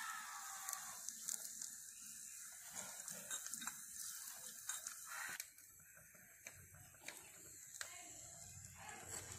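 Hot oil sizzling in a tiny clay pot as curry leaves are added and stirred, with many sharp crackling pops; the sizzle drops away about halfway through.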